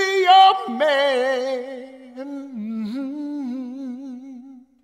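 A man singing unaccompanied: a few short notes, then one long held note with a wide vibrato that fades out near the end.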